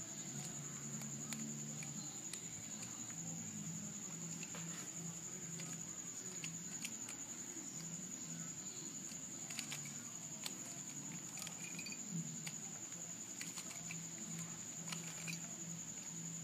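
Square-1 puzzle's plastic layers being turned and sliced by hand: irregular light clicks and clacks, over a steady high-pitched whine.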